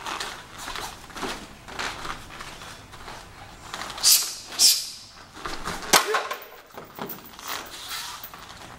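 Sharp cracks of a board breaking under a hand strike in a Gorilla Board Holder, two loud snaps about four seconds in and another hit about six seconds in with a short yell. Light scuffs and knocks from movement come in between.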